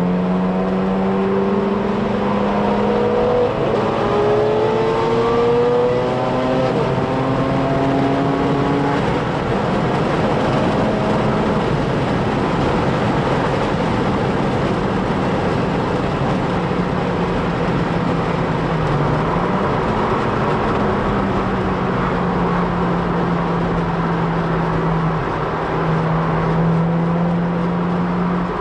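Car engine and tyre noise heard from inside the cabin while driving at road speed; the engine note rises over the first several seconds as the car accelerates, then holds steady.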